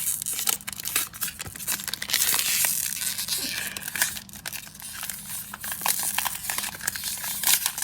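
A sealed plastic toy bag with no tear slit being ripped and crinkled open by hand, a run of crackling and tearing.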